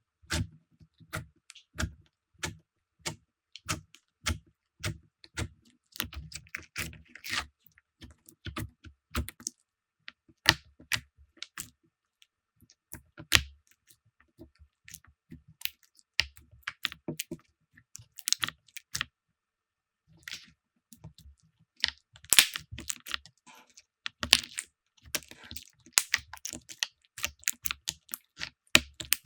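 Slime being pressed, poked and squeezed by hand close to the microphone, giving dense runs of sharp clicks and pops, with short pauses between handlings.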